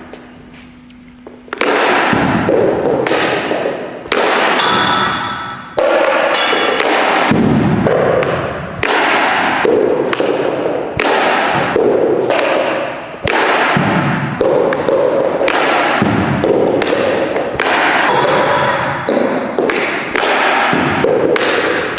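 Ice hockey stick shooting pucks one after another on a synthetic-ice surface: a sharp knock of the blade snapping each puck, each followed by a short fading echo. The shots begin about a second and a half in and come roughly once a second.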